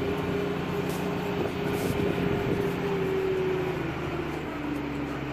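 Farm tractor's diesel engine running steadily under load, heard from inside the cab while hauling a loaded silage wagon; the engine's pitch drops about four seconds in as it slows.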